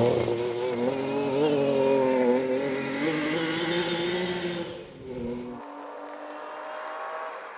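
Lancia Stratos rally car's Ferrari Dino V6 running hard at high revs, its pitch rising and falling with the throttle. About five seconds in it drops away to a fainter, thinner engine note.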